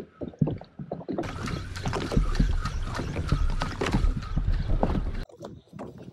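Water sloshing and slapping against the hull of a drifting Sea-Doo fishing jet ski, with a low rumble over it. The sound cuts off abruptly about five seconds in.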